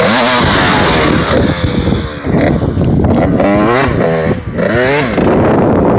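Suzuki RM125 two-stroke dirt bike engine passing close over the microphone on a jump, then revving up and down in several quick bursts as it rides away. A steady rushing noise takes over near the end.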